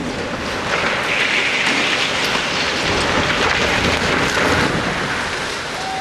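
Demolished industrial chimney collapsing after its blast: falling masonry crashes down as a continuous, dense noise that swells about a second in and eases off after about four seconds. Mixed with it is the hiss of water sprays.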